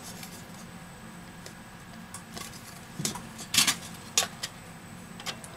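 A few light clicks and taps from about three seconds in, as a phone's bent metal back cover is knocked and handled against a flat metal plate.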